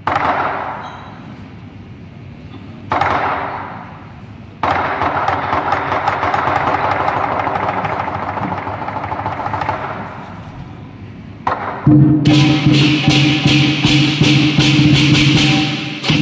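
Southern lion dance percussion of big drum and hand cymbals: two crashes about three seconds apart, each left to ring, then a long cymbal wash. From about twelve seconds in comes a fast run of cymbal strikes over a low, steady ringing tone.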